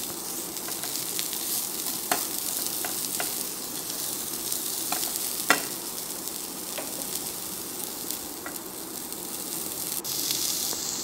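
Broccoli florets with chopped onion and garlic sizzling steadily in oil in a nonstick pan, stirred with a wooden spatula that taps against the pan now and then. The loudest tap comes about halfway through.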